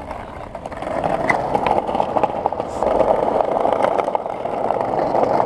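Skateboard wheels rolling over brick paving: a steady gritty rumble with small clicks, growing louder about a second in.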